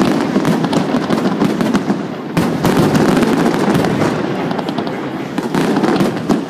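Aerial fireworks going off in quick succession: a dense run of crackling pops and bangs from bursting shells, easing briefly about two seconds in before a fresh loud salvo.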